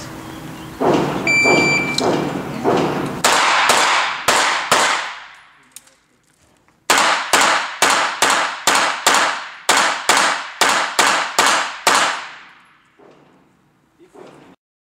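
A shot-timer start beep, then 9mm pistol fire from a CZ75 SP-01 Shadow. There are four quick shots, a pause of about two seconds, then about a dozen more shots fired fast and evenly, each ringing with echo.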